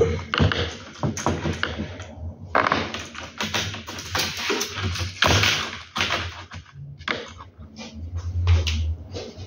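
Small plastic clicks and taps as blind-headrail parts are fitted together by hand, with a few seconds of rasping, scraping noise in the middle.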